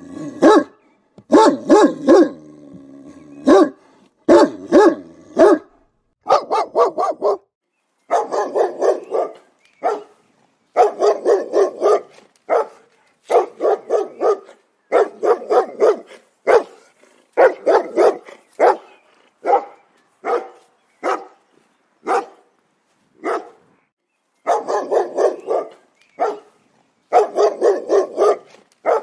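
Dog barking over and over, in quick runs of two to six barks with short silent gaps between them.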